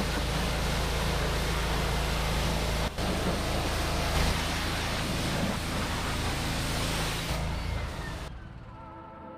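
Pressure washer running on its Honda GX petrol engine, the high-pressure water jet hissing steadily over the engine's low drone. The sound drops out for an instant just before three seconds in and fades away near the end.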